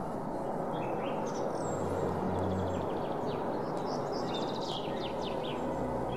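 Birds calling in short, quick chirps, busiest around the middle, over a steady rushing background noise.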